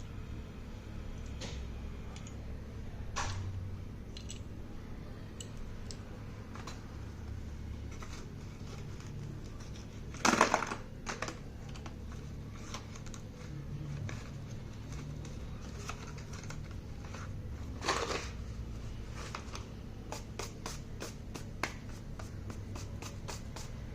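Light clicks, taps and rustles of slate pencils and their packaging being handled. There are two louder crackles, about ten and about eighteen seconds in, and a quick run of light ticks near the end.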